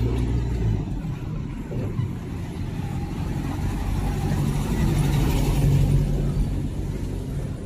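A motor vehicle's engine running steadily with road noise, a hiss swelling and fading around the middle.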